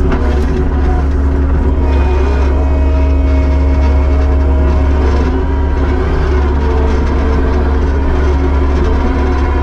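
Kubota SVL75-2 tracked skid steer's diesel engine running steadily under a loud, constant low drone.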